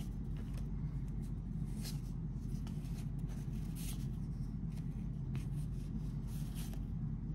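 Baseball cards sliding against one another as a pack is flipped through, a short soft swish about every second over a steady low hum.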